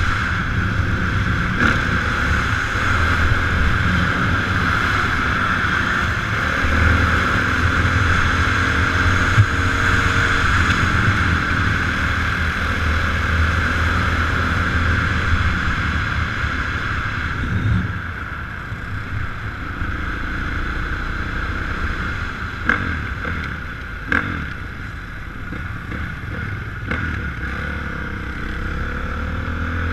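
Dirt bike engines running and revving, with wind buffeting the microphone; it gets a little quieter about two-thirds of the way through.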